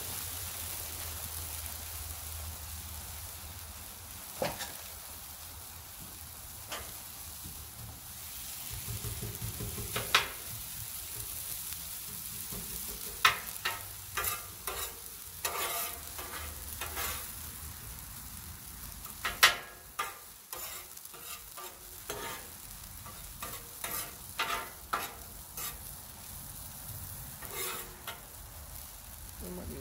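Shredded hash browns sizzling on a Blackstone flat-top steel griddle, with a metal spatula scraping and clacking on the plate in short strokes, most often in the second half.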